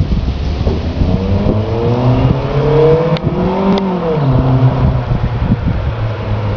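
Exhaust of a Toyota 4A-FE 1.6-litre four-cylinder engine, revved once from idle: the pitch rises for about two seconds, peaks, then drops back to a steady idle.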